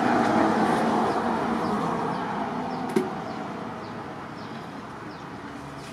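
Steady background hiss of an open shed, easing off a little over the first few seconds, with one sharp knock about three seconds in.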